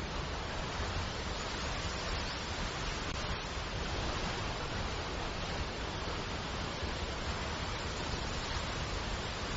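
Rushing water, a steady, unbroken wash of noise from a waterfall.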